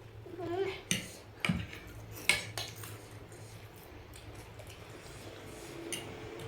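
Utensil clinking and scraping against a bowl while eating noodles: a few sharp knocks between about one and three seconds in, the loudest a little over two seconds in.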